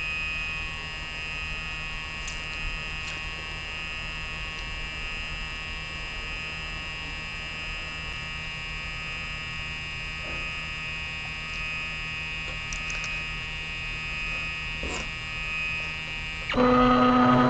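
Printrbot 3D printer humming with a steady high whine while it heats up, with a few faint clicks. About a second before the end its stepper motors start moving, a sudden louder buzz with several steady pitches, as the print begins.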